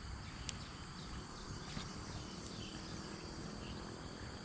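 Steady outdoor insect chorus, a continuous high shrilling in two bands over a low background rumble, with one faint click about half a second in.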